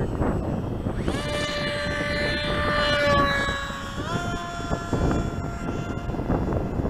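Motor of a radio-controlled model plane flying past: a steady whine with a stack of overtones that comes in about a second in, steps up in pitch about four seconds in, and fades near the end. Wind rumbles on the microphone throughout.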